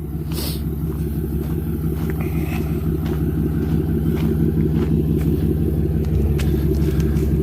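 Truck engine idling steadily, growing slightly louder, with a few faint clicks over it.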